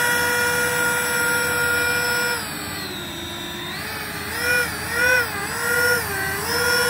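Electric ducted fans of a large RC Airbus A330 model whining at taxi power. The pitch holds steady for about two seconds, drops, then rises and falls in several short throttle blips as the plane taxis.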